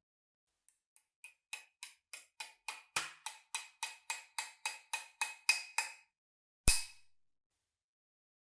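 Metallic clicking, about three or four clicks a second for some five seconds, getting louder, then a single louder knock.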